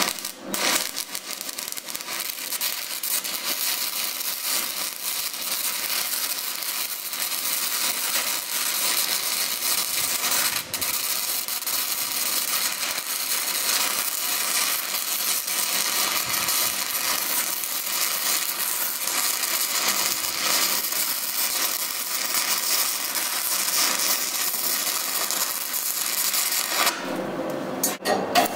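Stick (SMAW) welding arc crackling and hissing steadily as a bead is run, powered by a Longevity LC-518D multi-process welder. The arc strikes about half a second in and breaks off briefly near the end.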